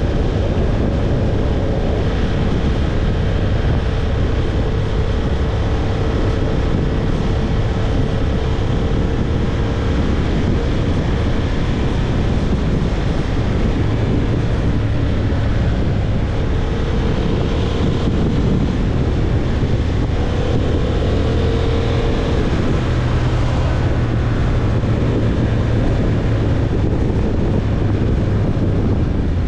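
Motorcycle engine running at a steady cruise, with wind rushing over the microphone. A thin whine drifts slightly in pitch now and then.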